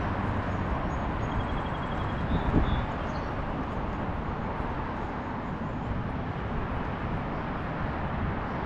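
Steady hum of road traffic, with a few faint high-pitched chirps in the first few seconds.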